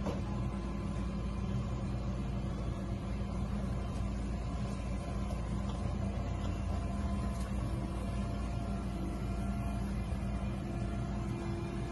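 Forklift engine running steadily, an even mechanical hum that holds the same level throughout.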